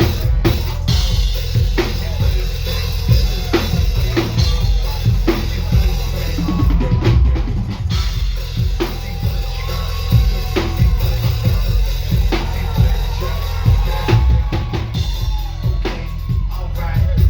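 Drum kit played live: a busy stream of bass drum and snare hits, with a heavy, booming low end.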